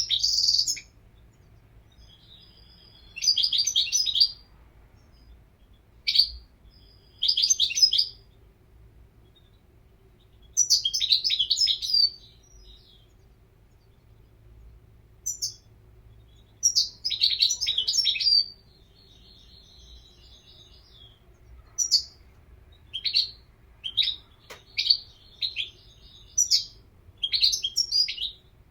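European goldfinch singing in separate bursts of quick, high chattering notes, each a second or so long with pauses of a few seconds between; near the end the phrases come shorter and closer together.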